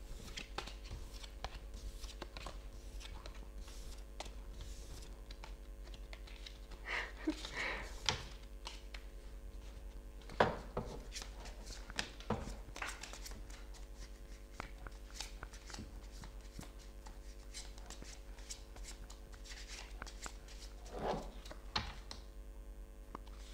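Tarot cards being gathered up, shuffled and laid down on a wooden tabletop: soft riffles, slides and light slaps of card stock, with a steady faint hum underneath.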